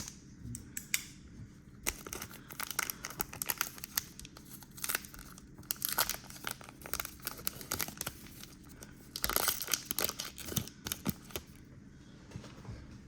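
Trading-card pack wrapper crinkling and tearing as it is cut and pulled open with a blade, a dense run of crackles and short rips that is loudest a little before the end and then dies down.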